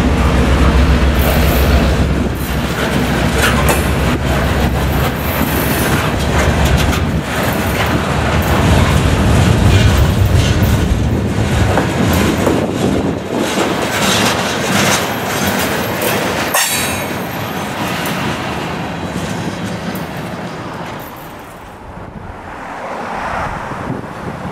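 EMD GP9 diesel locomotive and its train going by: the engine's low drone is loud in the first few seconds, then the wheels click steadily over the rail joints, and the sound fades near the end.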